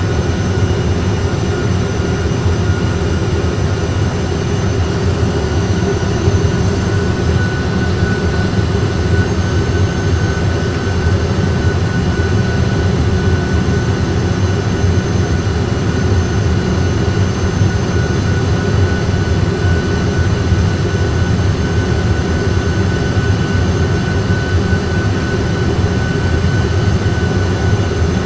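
Steady cockpit noise of an Airbus A320 full-flight simulator on final approach: a continuous low rumble of engines at approach thrust and airflow with gear down and flaps full, with a thin steady whine above it.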